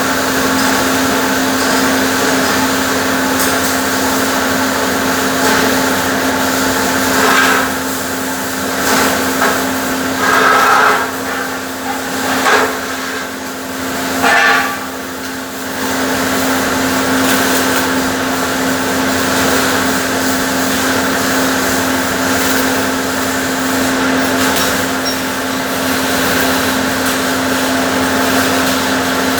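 Steady machine hum from welding equipment, with several short, louder bursts of hissing, crackling noise a little before the middle.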